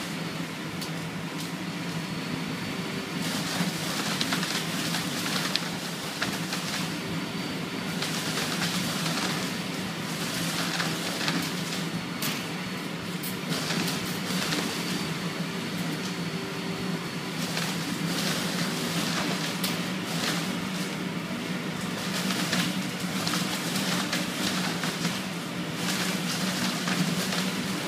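Central vacuum leaf-disposal system sucking cut tomato leaves out of a leaf cart through a large pipe: a steady rush of air over a constant low hum, with irregular rattling and rustling as bunches of leaves are drawn in.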